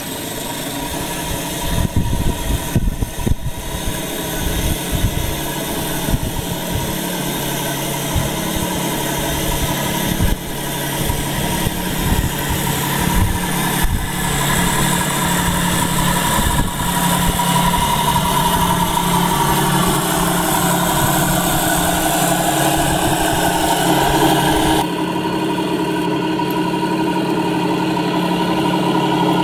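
1:6 scale radio-controlled T-34 tank models driving, with a steady engine-like drone and a higher whine over the uneven clatter and rumble of the tracks. The sound changes abruptly about 25 seconds in.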